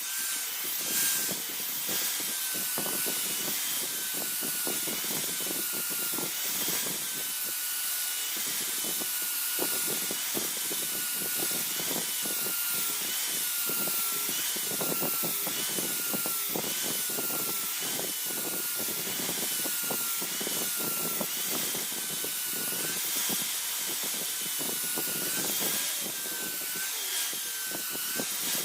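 A small power tool's motor whining, its pitch dipping about once a second as it is loaded, over a rough scraping of metal being worked.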